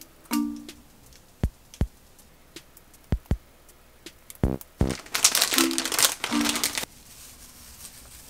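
Background music with a drum-machine beat. About five seconds in, a plastic bag of bonito flakes crinkles loudly for nearly two seconds as it is opened and handled.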